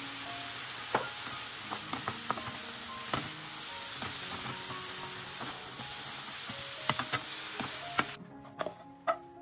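A steady sizzling hiss with scattered sharp clicks and taps, cutting off suddenly about eight seconds in, with soft music notes underneath.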